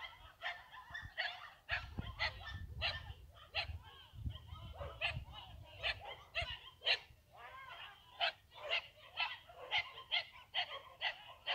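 A dog yelping and crying out in pain over and over while held in a pitbull's bite, short harsh cries coming about twice a second.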